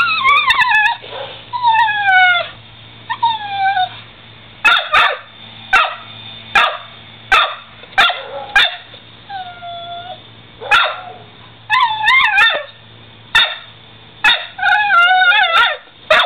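Dog barking and whining at an opossum: long falling and wavering whines, with sharp single barks about a second apart in the middle and a few more later.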